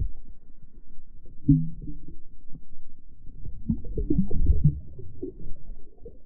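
Muffled thuds and knocks from handling a camera in a waterproof housing as it is brought up out of the water, with a deep thud about a second and a half in and a cluster of knocks around four seconds. Everything sounds dull and boomy, with no treble, as if heard through the housing.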